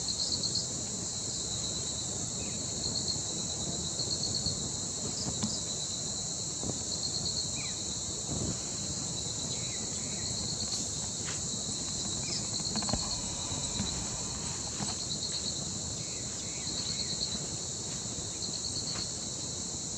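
Insects chorusing: a steady high-pitched drone, with another insect breaking in with short pulsed trills every second or two. A few faint chirps sound now and then.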